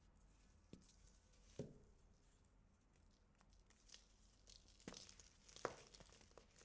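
Quiet crunching and crumbling of compacted baking soda: a few sharp, crisp crunches, the strongest about a second and a half in and again around five and a half seconds, with fine crackling between.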